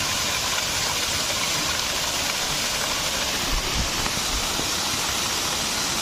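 Small waterfall spilling down a rock face into a pool: a steady, even rush of falling water.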